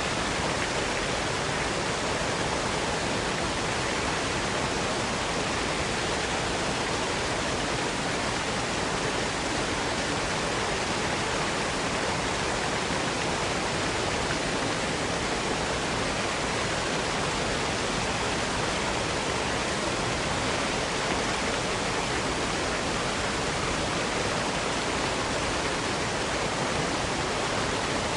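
Steady waterfall noise, an even rushing hiss of falling water with no change in level, used as a sleep sound.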